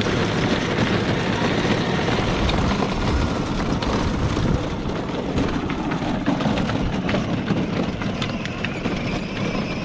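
Battery-powered Power Wheels ride-on toy car driving along asphalt: its electric drive running and its hard plastic wheels rolling over the rough pavement in a steady rumble.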